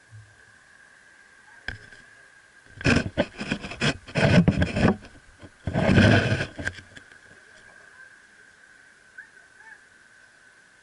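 Handling noise from a camera being moved on a wooden table: a single knock, then a few seconds of loud rubbing and scraping knocks, after which it settles. A steady high thin tone runs underneath.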